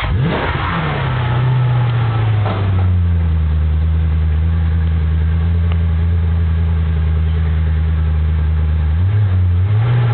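Maserati GranSport's 4.2-litre V8 just after catching: the revs flare up and fall back over the first two seconds or so, blip once more briefly, then settle into a steady idle from the quad exhausts. The idle note changes a little near the end.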